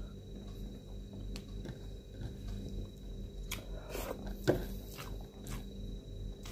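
Close mouth sounds of eating shrimp by hand: chewing, sucking and small clicks, with one louder suck-and-smack about four and a half seconds in, over a steady low hum.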